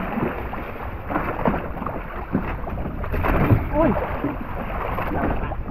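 Steady noise of a small outrigger fishing boat at sea, with wind on the microphone. A short voice is heard briefly about three and a half seconds in.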